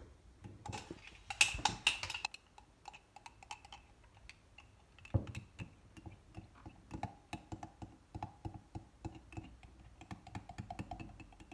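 Spoon stirring a mix of dish soap and salt in a ceramic mug, clicking and scraping against the inside in quick, irregular taps. The taps are densest and loudest for about a second near the start.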